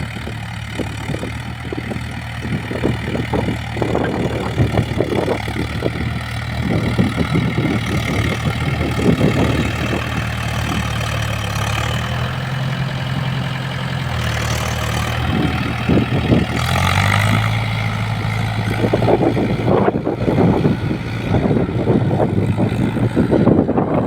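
Diesel engine of a Mahindra Yuvo 475 tractor running steadily while working a field. Its pitch shifts a little around the middle. Uneven bumps of noise sound over the engine throughout.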